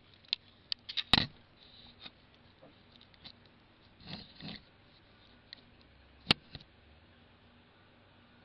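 A few scattered light clicks and knocks, the loudest about a second in and another sharp click past the six-second mark, with a soft brief rustle around four seconds in, over a faint steady hum.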